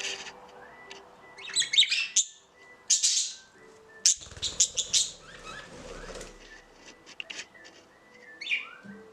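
Budgies chirping in several short bursts of high, quick chirps, with pauses between them.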